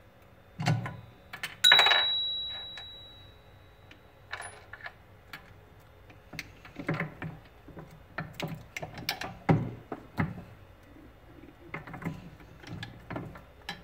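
Jeweller's rolling mill working a platinum bar through its square grooves: irregular metallic clicks and knocks. About two seconds in comes one sharp metal clink that rings on for over a second.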